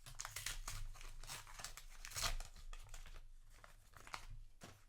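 A trading-card booster pack's crinkly wrapper being handled and torn open: a quick run of crackling, tearing rustles that thins out near the end.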